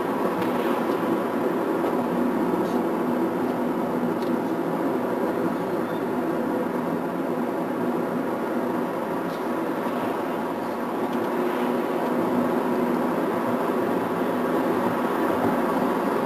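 Steady road and engine noise inside a car's cabin while driving along a paved road.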